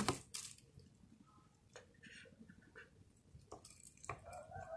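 A kitchen knife slicing a block of tempe, with a few sparse light clicks of the blade. Near the end, a faint drawn-out call sounds in the background.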